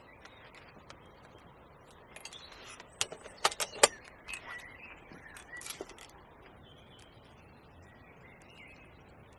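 A quick run of sharp clicks and clinks, loudest about four seconds in, with small birds chirping.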